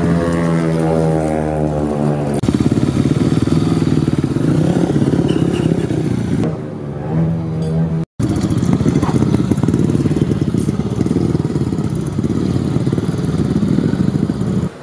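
Speedway motorcycles' 500cc single-cylinder methanol engines running loudly, the pitch rising over the first two seconds as one revs up, then settling into a dense, rapid firing. The sound drops out for an instant about eight seconds in.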